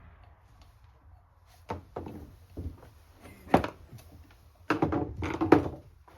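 Small carburetor parts and hand tools being handled and set down on a workbench: a few separate knocks, the loudest about three and a half seconds in, then a run of clattering near the end.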